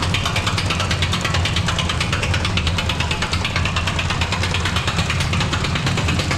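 Mousetrap roller coaster's ride machinery running: a steady low mechanical hum with a fast, even clicking rattle.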